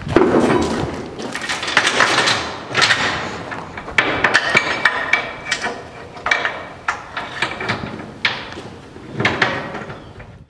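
Steel transport chains and a load binder clanking against the flatbed trailer while a coil is being chained down: a heavy clunk at the start, then a run of metallic knocks and clinks, some ringing briefly.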